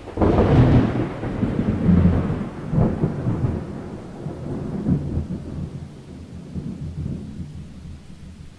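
Rolling thunder: a low rumble that starts abruptly, swells in several rolls over the first few seconds and slowly dies away.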